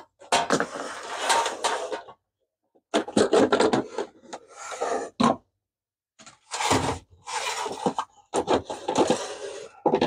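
Plastic water tanks being pulled out of two small dehumidifiers and handled, with scraping, rubbing and clattering in three long bursts broken by two short pauses.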